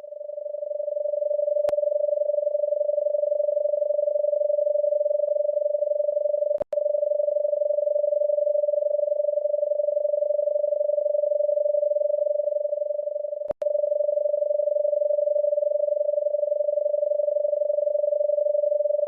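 A steady, mid-pitched electronic tone with a fast flutter, presented as the sound of a dwarf planet or its moon system. A faint click comes about two seconds in, and the tone cuts out for an instant twice.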